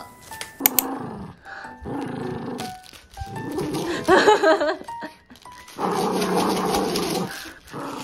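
Bichon Frise growling in play while tugging on a plush toy, in several growls about a second long.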